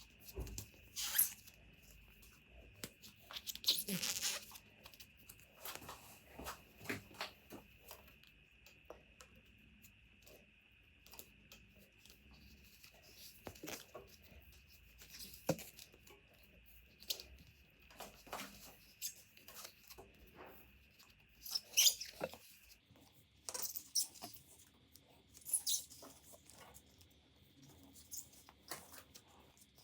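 Scattered small clicks, taps and scrapes of hands working on bicycle parts, over a faint steady high whine that steps up in pitch near the end.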